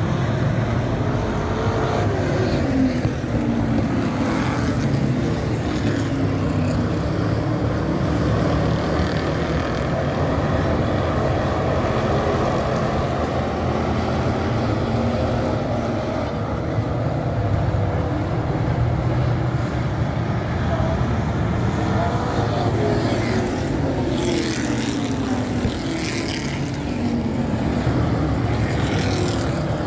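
A pack of dirt-track stock cars racing around the oval with engines running hard. Engine pitches sweep up and down as cars pass close by.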